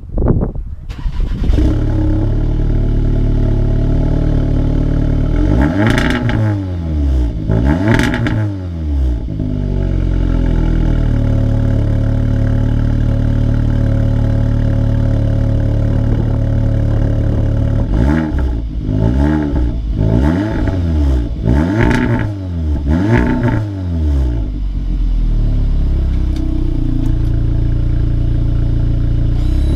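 Audi S3's turbocharged four-cylinder exhaust: the engine starts right at the beginning and settles to a steady idle, is revved twice in quick rises and falls, idles again, then is revved four more times in quick succession before dropping back to idle.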